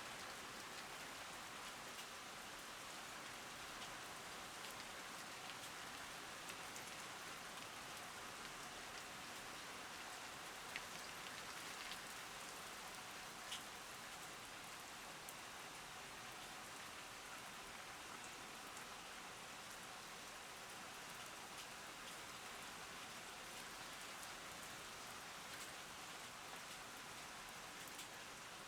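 Steady rain falling, with a few sharper single drops standing out now and then.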